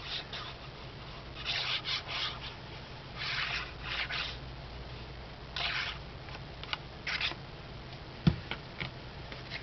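Paper and cardstock being handled while a tab is glued and set in place: several short, soft rustles, with a sharp tap just after eight seconds in.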